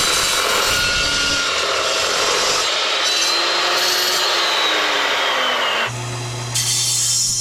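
Evolution S355MCS metal-cutting chop saw cutting aluminium tubing, with a loud screech of blade through metal and the motor's pitch sagging and recovering as the blade loads in the cut. About six seconds in the cutting noise drops away and a low steady hum takes over.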